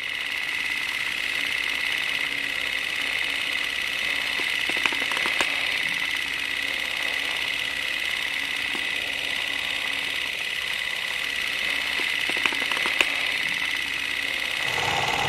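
Film projector running: a steady whirring clatter of the film transport, with a few sharp clicks. Music comes in just before the end.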